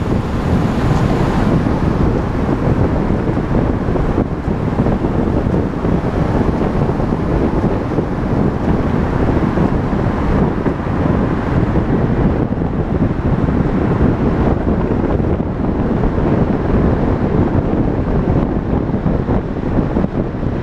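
Steady, loud wind buffeting the microphone of a camera riding on a moving vehicle at road speed, with vehicle and road noise underneath.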